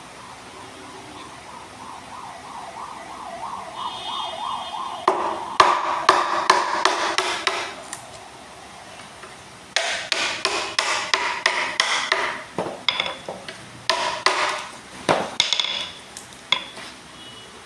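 Hammer striking wood or a chisel in quick bursts of about four blows a second, with a short pause between the bursts. The blows come further apart near the end. Before the first burst, a rhythmic wavering sound grows louder for a few seconds.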